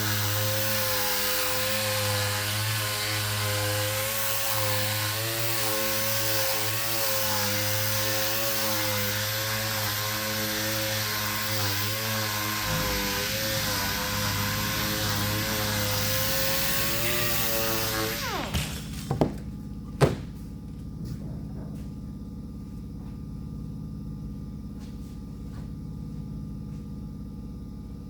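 Electric sander running steadily with a wavering whine and a hiss, then switched off about two-thirds of the way through and winding down with a falling pitch. Two sharp knocks follow, and a low steady hum remains.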